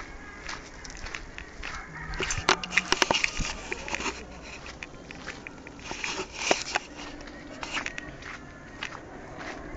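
Footsteps scuffing and crunching on a gritty paved path, with scattered crackles and scrapes and a cluster of sharp knocks about two and a half to three seconds in.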